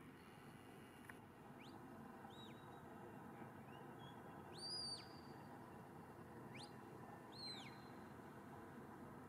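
Faint shepherd's whistle commands to a working sheepdog: about five short whistles that rise and fall in pitch. The longest and loudest is held steady about halfway through. A soft hiss from the open field lies underneath.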